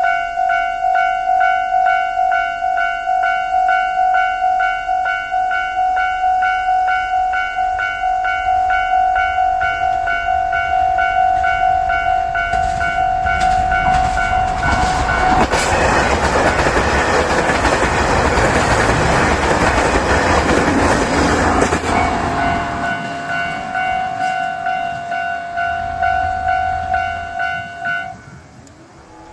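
Japanese railway level-crossing warning bell ringing in a rapid repeating pattern. Midway through, the Furano Lavender Express diesel train passes over the crossing, its running noise and wheel clatter over the rail joints building and fading over several seconds. The bell stops shortly before the end.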